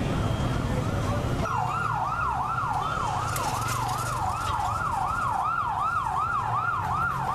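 Emergency vehicle siren in a fast yelp, its pitch sweeping up and down about three times a second. It cuts in about a second and a half in, over a low rumble.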